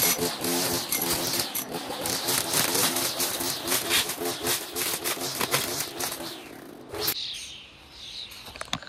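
String trimmer running at full speed, its line cutting through long grass and weeds with many sharp crackles as it hits stems. About seven seconds in, the throttle is let off and the sound drops away suddenly.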